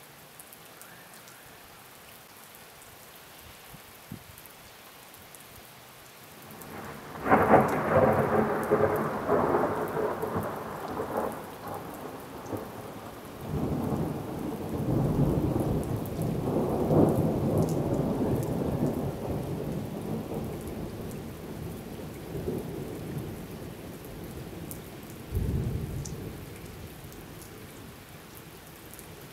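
Thunder from an in-cloud lightning strike: a sudden clap about seven seconds in that rolls on in rumbles for some fifteen seconds, with a further low rumble near the end. A steady hiss of rain runs beneath it.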